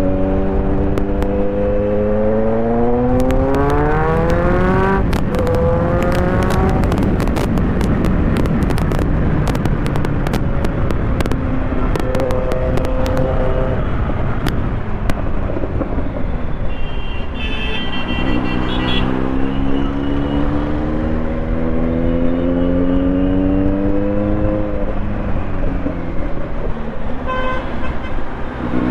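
A high-revving vehicle engine accelerating hard, its pitch climbing steadily for about five seconds before dropping at a gear change, then climbing again for several seconds in the second half. Sharp crackles come through during the first climb.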